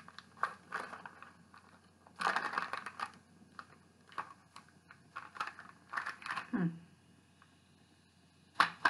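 Crinkling of a foil-and-plastic chocolate bar wrapper being handled, in several irregular bursts with quiet gaps between.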